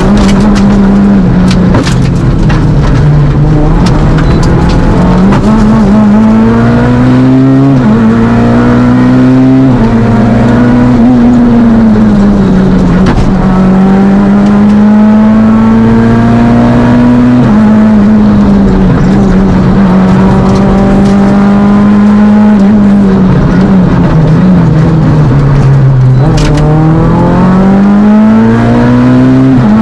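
Fiat Panda Kit Car rally car's engine run hard on a special stage, heard loud from inside the car: the pitch repeatedly climbs and falls away as the driver lifts and changes gear, with several sharp drops.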